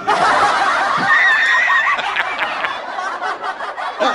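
A group of men laughing loudly together, several voices overlapping, with one high, drawn-out laugh standing out about a second in.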